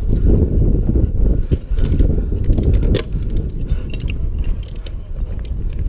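Metal hardware and rope clinking and jangling as a lineman hauls a wooden crossarm up by handline. Scattered sharp clicks, bunched around the middle, sit over a constant low rumble.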